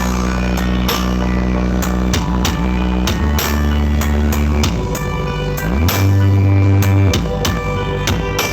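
Loud electronic dance music with heavy bass played through a large carnival sound system. Long deep bass notes change pitch under drum hits about twice a second; near the middle a bass slide rises into the loudest, deepest note, held for about a second.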